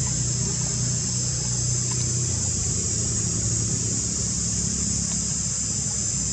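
A steady background sound: a constant low hum, like an engine running, under an unbroken high-pitched drone.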